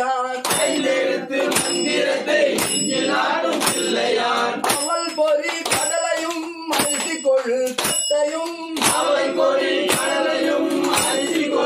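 Devotional singing kept in time by small metal hand cymbals struck about once a second, each strike ringing on briefly.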